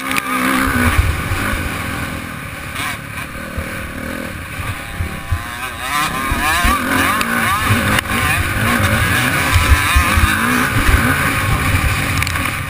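Dirt bike engine revving hard and easing off over and over as it is ridden around a motocross track, heard close up from a camera mounted on the bike. A low, uneven wind rumble on the microphone runs underneath.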